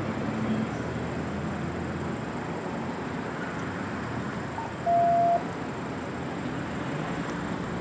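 A single electronic beep, one steady tone about half a second long, about five seconds in, over steady street background noise.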